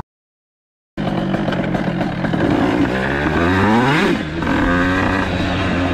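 After about a second of silence, a small motorcycle's engine accelerates hard, its pitch rising for about three seconds. The pitch then drops suddenly about four seconds in as it shifts up, and the engine keeps pulling steadily.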